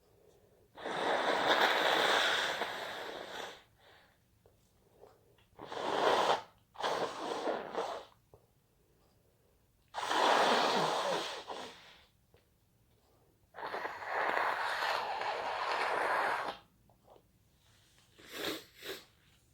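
A person sneezing over and over with noisy, wheezy breaths, in about half a dozen bursts separated by short pauses.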